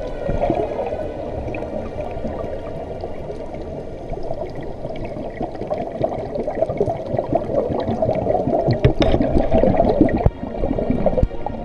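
Muffled underwater noise through a camera's housing: scuba divers' exhaled bubbles gurgling and rushing, growing louder in the second half.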